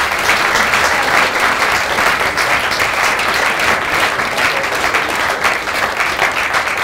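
Audience applauding: many hands clapping in a dense, steady round that begins to thin out near the end.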